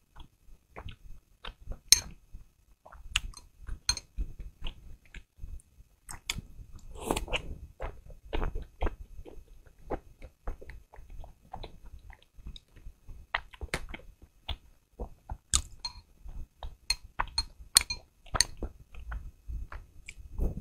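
Close-miked wet chewing of pork-filled soup dumplings, with many irregular sharp mouth clicks and smacks.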